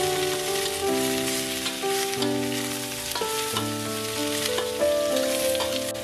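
Chopped cabbage, carrot and chili stir-frying in a wok, a steady sizzle with scrapes of the metal spatula. Instrumental background music with held melody notes plays over it throughout.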